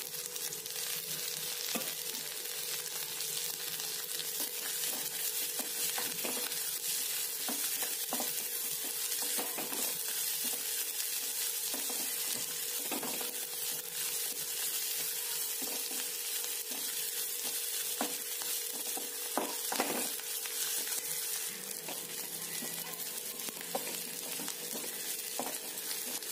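Sliced onions, curry leaves and green chillies sizzling in hot oil in a kadai for a tempering. A wooden spatula stirs them now and then, scraping against the pan.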